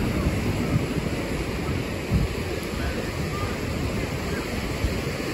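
Wind buffeting the microphone over the steady wash of ocean surf, with faint voices of people in the distance.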